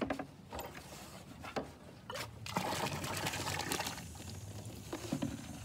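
Water pouring from a spout into a plastic bucket, filling it, with a rushing stream most of the way through. A few sharp knocks come in the first two seconds.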